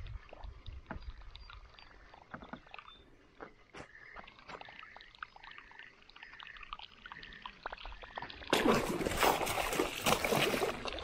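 A small muskellunge hooked right beside a kayak, thrashing and splashing at the surface: loud splashing that starts suddenly about eight and a half seconds in and goes on in surges. Before it, only faint scattered clicks and ticks of the lure being reeled in.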